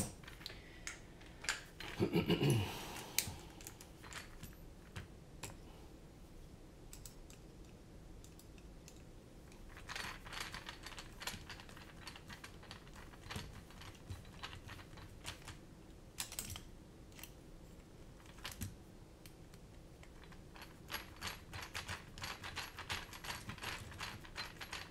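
Ratcheting screwdriver clicking in short runs while it tightens the screws that clamp the arms of a carbon-fibre drone racing frame, with small taps and clicks of the tools against the frame.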